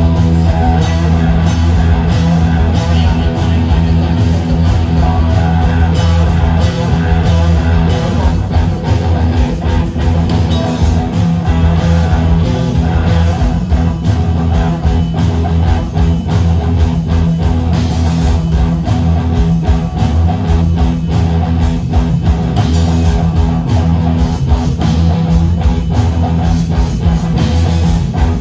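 Live rock band playing electric guitars and a drum kit, loud and continuous.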